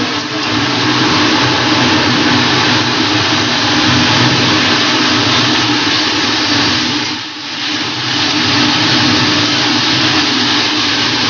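Sliced onions and chicken pieces sizzling in oil in an aluminium kadai as they are stirred with a spatula, over a steady low hum. The sizzle drops briefly about two-thirds of the way through.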